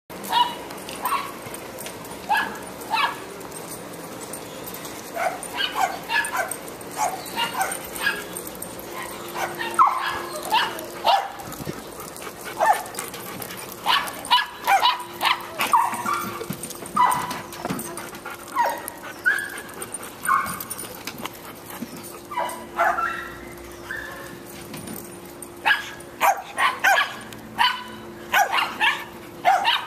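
Dogs barking and yipping at play: many short, sharp barks and yips in irregular bunches, busiest near the end.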